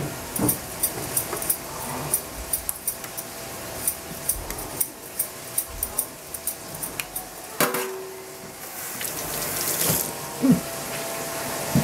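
Hand vegetable peeler scraping the skin off a potato in quick short strokes over a stainless steel sink. About eight seconds in there is a knock, then a short spell of running tap water.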